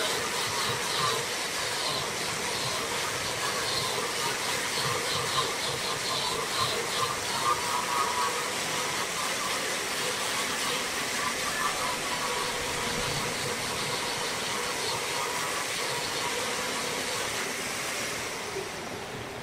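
Wood lathe running with a tool cutting into the spinning wood: a steady hissing rush that thins out and drops a little near the end.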